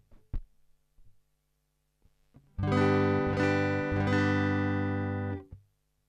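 A guitar chord is strummed about two and a half seconds in and rings for about three seconds before being damped, a dry tone with the BBD chorus pedal switched off and bypassed. A small click comes just before it.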